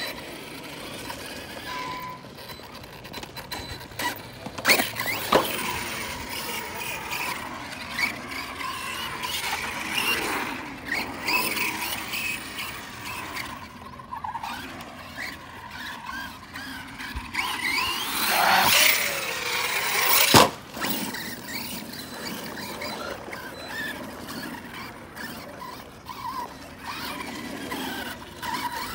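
Arrma Outcast RC truck's brushless electric motor whining, rising and falling in pitch as the truck accelerates, brakes and slides. There are sharp knocks about five seconds in and about twenty seconds in. The second knock comes right after the loudest surge of motor whine.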